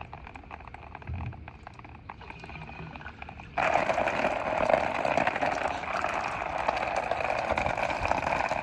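Water poured into a through-hull fitting to test the new valve for leaks, starting suddenly a little over three seconds in and running steadily as it rushes through the fitting.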